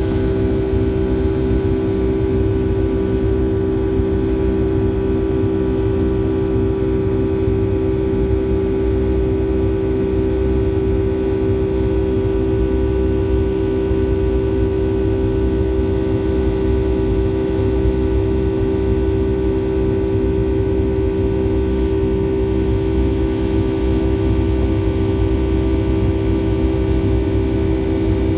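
Cabin noise inside a Boeing 757-300 climbing after takeoff: the engines' steady drone, a strong even hum over a low rumble, unchanging throughout.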